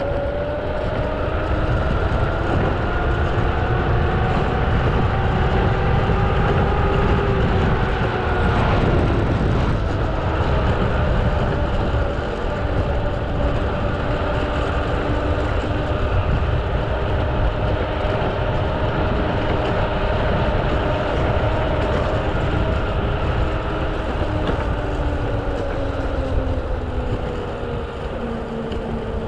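Mototec 600 W electric skateboard riding over rough asphalt on airless rubber tyres. The drive motor gives a steady pitched whine that climbs slowly over the first several seconds, dips briefly, holds, and falls near the end, over a continuous low road rumble. There is a single knock a little under ten seconds in.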